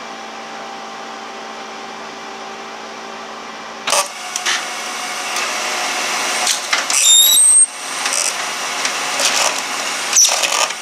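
HP LaserJet Pro 400 color laser printer running its power-on cycle without toner cartridges: a steady motor hum, then about four seconds in the drive motors and gears start with a louder whirring clatter, with short rising whines around seven seconds. The printer's torn transfer belt is being driven around inside it, because the machine cycles regardless of the damage.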